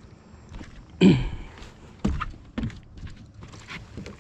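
A few knocks and thumps on a boat: a loud one about a second in, then smaller ones around two seconds in.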